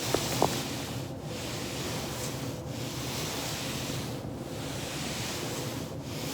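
Two quick pops about a third of a second apart just after the start, the sound of joints cracking, over a steady rushing noise that swells and fades about every second and a half.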